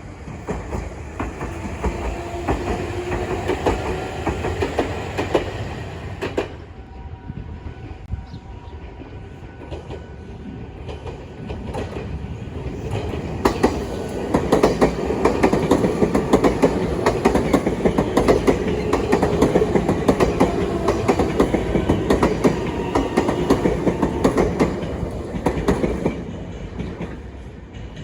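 Nankai Line electric train passing close by, its wheels clattering rapidly over the rail joints. It grows loudest about halfway through and fades near the end.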